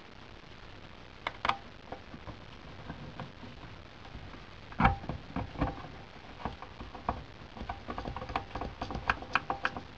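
Small metal clicks and taps as an oil can and fingers work over the cylinder and flywheel of a D6 model steam engine while it is oiled. A single louder knock about five seconds in, and a quick run of clicks, some briefly ringing, in the last few seconds.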